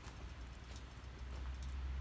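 Fatwood burning in a small metal camp stove, crackling with irregular sharp pops over a low rumble.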